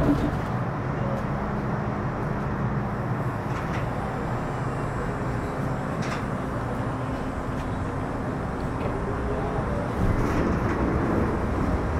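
Inside an MTR Metro Cammell M-Train EMU: a steady low rumble with faint tones. About ten seconds in it gets louder as the train begins to move off.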